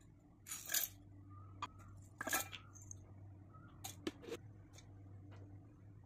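A few short clinks and clatters of ingredients and hands against a stainless steel mixer-grinder jar, the loudest about a second in and two seconds in, with more near the middle, over a faint low hum.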